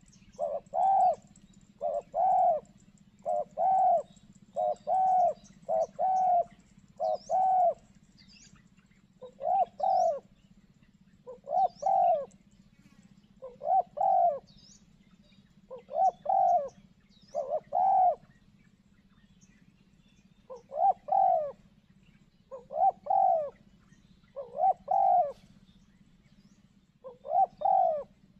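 Spotted dove (tekukur) cooing: short repeated coo phrases, coming close together for the first several seconds and then about every two seconds.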